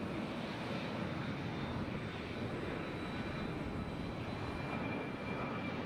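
Airbus A350's twin Rolls-Royce Trent XWB turbofans running at taxi power, a steady rumble with a thin high whine on top that grows a little stronger near the end.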